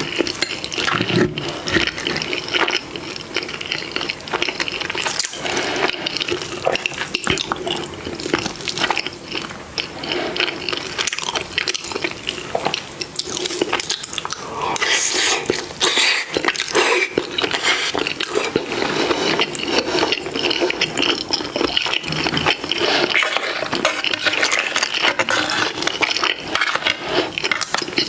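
Close-miked mukbang eating sounds: wet chewing, smacking and slurping of food in a dense, continuous run of small clicks.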